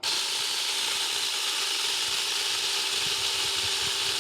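Huing 6-inch cordless mini chainsaw switched on suddenly and running steadily at full speed with no load, a steady whine over the chain's rattle; the chain has just been oiled and is spinning to sling off the excess oil.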